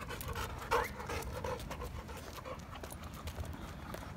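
Boxer dog panting as it trots along an asphalt path, with quick running footsteps and one brief louder sound about a second in.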